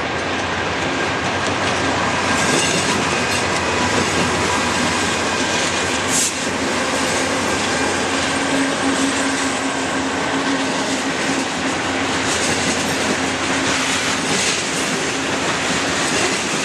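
Freight train passing close by: BNSF GE Dash-9 diesel locomotives rumble past, followed by covered hopper cars rolling steadily over the rails with wheel noise and clicking over the rail joints.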